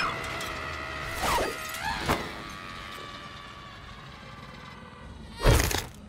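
A small flying machine's whirring hum fading away, then a loud crash about five and a half seconds in as it comes down.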